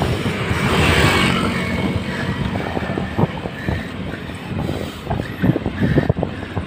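Gusty, uneven wind noise buffeting the microphone as a bicycle rolls down a gentle descent at speed.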